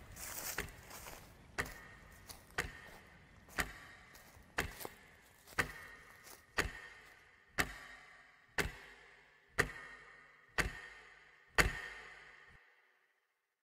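A clock ticking once a second, each tick sharp with a short ring. After about a dozen ticks it stops near the end.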